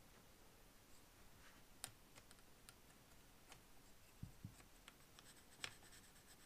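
Near silence with a few faint, scattered ticks and soft taps as a carpenter's pencil marks on painter's tape laid over a steel tape measure.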